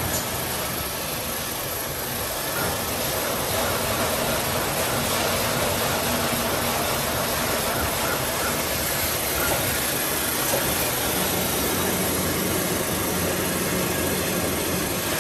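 XY-AI-400 automatic coreless toilet paper band saw cutting machine running, a steady, even mechanical noise with no separate strokes, growing a little louder about three to four seconds in.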